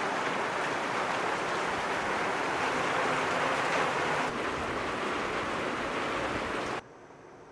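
Steady rain falling, an even rushing hiss that stops suddenly near the end.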